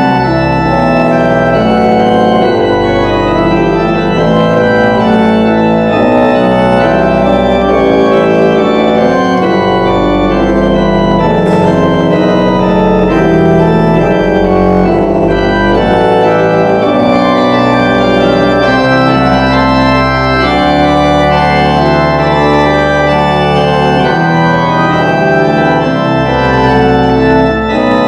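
Two-manual church organ playing sustained chords over a held bass line, the notes changing in slow succession.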